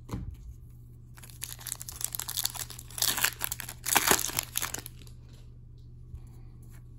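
Foil wrapper of a 2021-22 Upper Deck Series 2 hockey card pack being torn open and crinkled in the hands. The crackling rustle starts about a second and a half in and stops about five seconds in.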